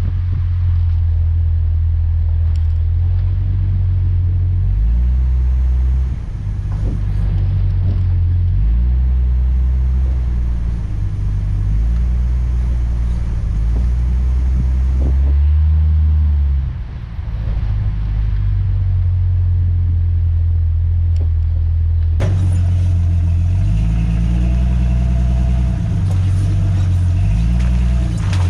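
Continuous low rumble of a car on the road, its low hum shifting in pitch every few seconds.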